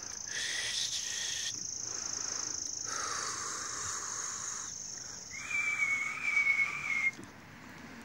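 High, steady whistling tones. A thin high tone holds through the first five seconds or so, with lower tones switching on and off beneath it. Then a lower whistle that wavers slightly holds for about two seconds and stops.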